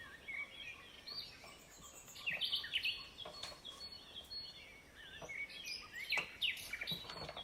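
Several wild birds chirping and calling: short whistled notes and quick rising and falling chirps, overlapping one another, with a few soft knocks now and then.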